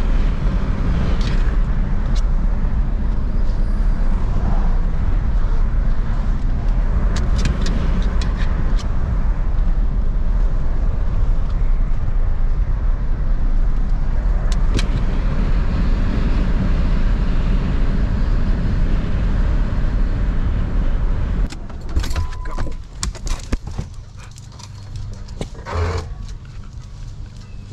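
Car cabin noise while driving: a steady low rumble of engine and tyres with a few light rattles. A little over three-quarters of the way through it cuts off abruptly, leaving quieter clicks and jingling and a short knock near the end.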